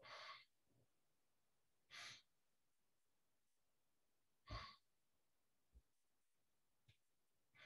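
Faint, slow breathing: about four soft breaths a couple of seconds apart, taken while holding a qigong stance.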